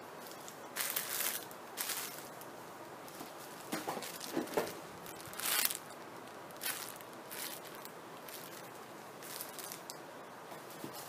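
Plastic rustling and crinkling in several short bursts, typical of squishy toys being handled in their plastic packaging.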